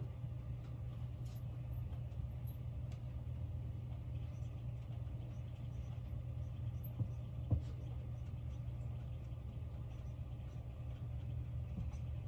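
Steady low hum from a running appliance or machine, with a few faint clicks and taps, one a little louder about seven and a half seconds in.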